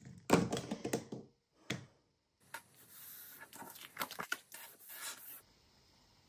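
Card pages with glued fabric edging being handled and pressed flat on a cutting mat: paper rustling and scraping with a few sharp knocks, loudest in the first second. It stops shortly before the end.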